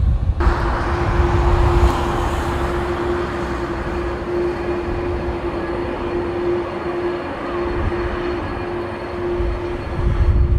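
Jet airliner noise: a steady rushing roar with one held low note, and gusts of wind rumbling on the microphone.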